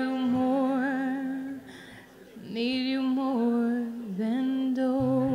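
A woman's voice singing wordless held notes with vibrato, live through a microphone, in three long phrases with short breaths between them.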